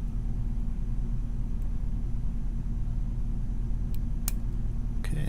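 Steady low hum, with two light clicks about four seconds in.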